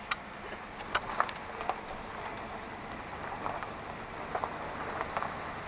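Car moving slowly, its steady road and engine noise heard from inside the cabin, with a few sharp clicks in the first second and a half.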